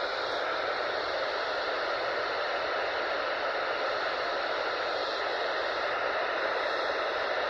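Steady static hiss from a NOAA weather radio receiver, with no broadcast behind it: the station has gone off the air.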